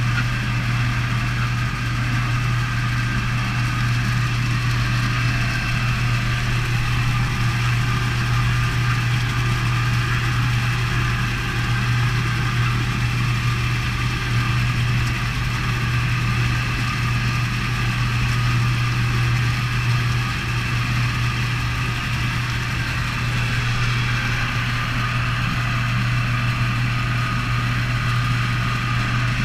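Fish stocking truck idling: a steady, unchanging low engine drone.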